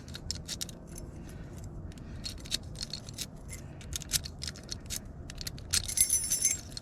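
Small metal lock parts being handled and fitted together, a run of light clicks and ticks, while reassembling a lever handle lockset. A key ring hanging from the cylinder jangles briefly about six seconds in.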